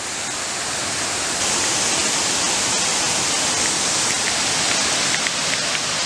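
Steady rush of a small waterfall cascading over rocks, growing louder over the first second or so and then holding steady.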